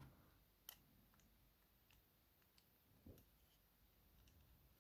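Near silence, with a few faint, separate metallic clicks from the disc detainer padlock and its key being handled.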